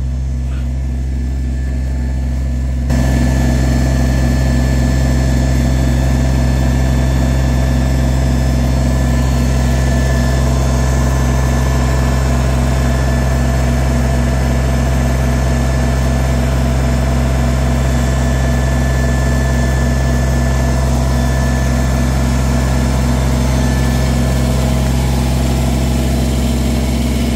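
Kubota BX23S tractor's three-cylinder diesel engine running steadily. About three seconds in it becomes louder and fuller, then holds steady.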